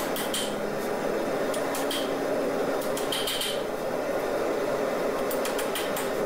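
Hand hammer striking a red-hot railroad spike on the anvil in irregular clusters of blows, each a sharp clink, some with a short ring, over a steady hum.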